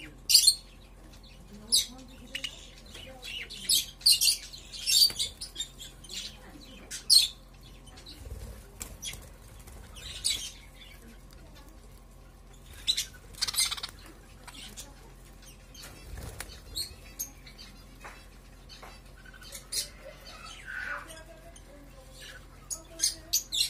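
Budgerigars chirping and chattering in short, irregular bursts, with some wing flapping.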